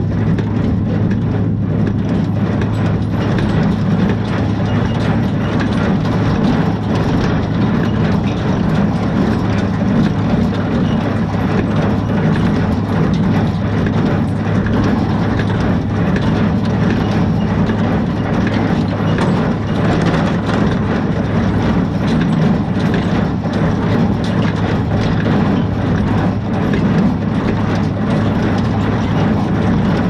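Tractor towing a small square baler in operation: the engine runs steadily under the baler's continuous mechanical clatter.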